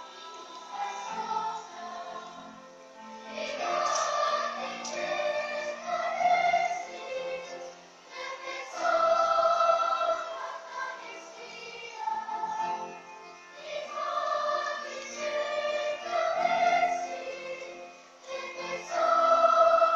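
Children's choir singing a song in Nahuatl, many voices holding long notes in phrases that swell and fade, growing loudest about nine seconds in and again near the end.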